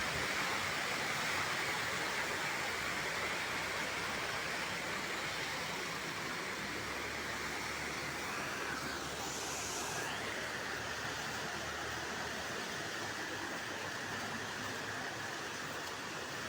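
Steady rushing hiss of a small stream's running water, easing slightly over time.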